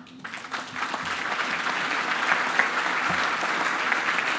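Audience applauding: the clapping starts right away, swells within the first second, then holds steady.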